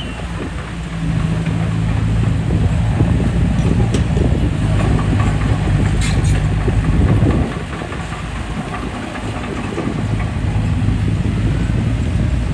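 D20P bulldozer's diesel engine running under load, building up about a second in, easing off after about seven seconds and pulling hard again near the end, with a brief metallic knock around six seconds.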